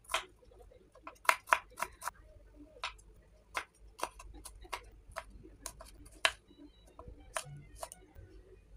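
Kitchen knife slicing shallots, garlic and chilies on a wooden cutting board: sharp, irregular taps of the blade striking the board, sometimes several in quick succession.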